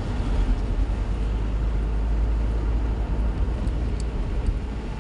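Inside a moving car: a steady low rumble of engine and road noise.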